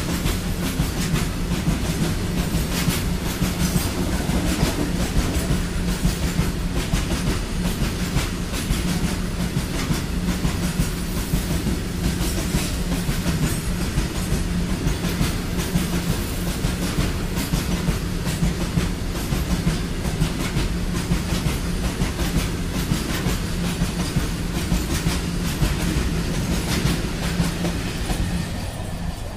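Freight train of open-top steel wagons rolling past close by, wheels clattering over the rail joints in a dense, steady clickety-clack, with a steady low drone underneath. The noise eases slightly near the end.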